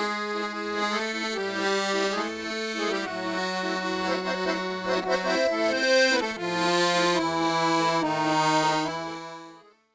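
Accordion music: a slow tune of held chords over a sustained bass note, fading out near the end.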